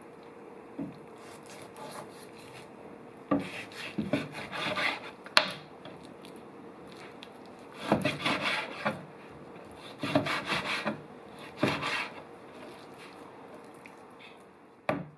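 Scraping and rubbing against a wooden surface in four bursts of a second or two each, with a sharp knock near the end.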